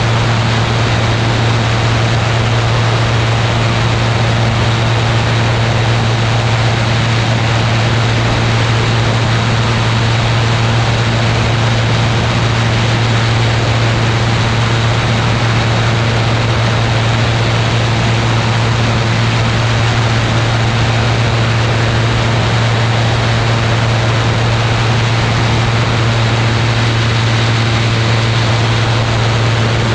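Ultralight aircraft's engine and propeller running steadily in flight: a constant low hum under a loud, even rush of wind.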